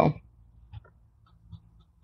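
Faint, brief scratches of a Parker 45's steel fountain-pen nib on paper as short strokes are drawn.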